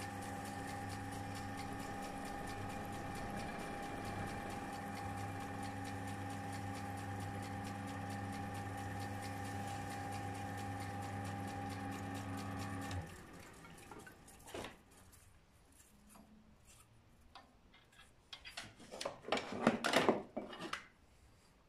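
Wood lathe running with a steady hum while a cloth polishes the spinning wooden piece, the motor cutting off about two-thirds of the way through. After that come a few scattered knocks and a short burst of rustling handling near the end.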